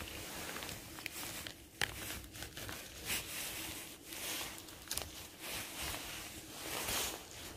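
Quiet, irregular rustling and crinkling with a few short, sharp clicks.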